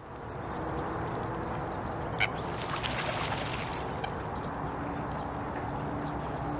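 Outdoor pond ambience: a steady low background rush with a few short waterfowl calls, the sharpest about two seconds in.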